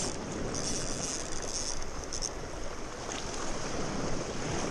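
Sea waves washing over shoreline rocks, with wind buffeting the microphone: a steady rushing noise.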